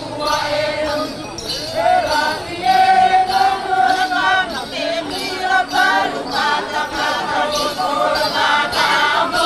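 A group of Togo dancers singing a traditional Palue chant together, in long held notes that bend and shift in pitch, over a light jingling.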